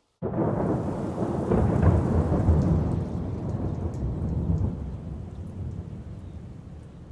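Thunder rumbling over steady rain. It breaks in suddenly, peaks a couple of seconds in, then slowly dies away.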